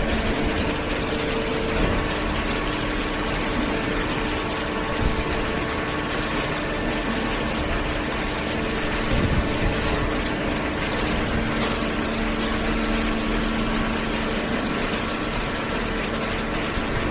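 Hydraulic power unit of a vertical paper baler running steadily: a continuous mechanical hum with a few faint, steady tones.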